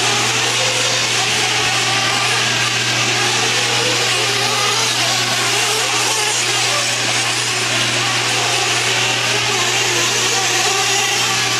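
Several 1/8-scale nitro truggies' small two-stroke glow-fuel engines running together at high revs, a dense, steady, high-pitched buzz with pitches that waver up and down as the cars throttle and brake around the track.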